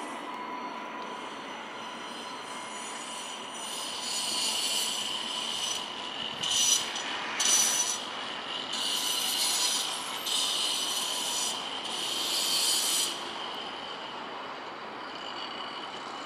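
Alstom Citadis X05 light rail tram running along street track, its wheels hissing and squealing against the rails in several louder bursts through the middle, over a steady high whine.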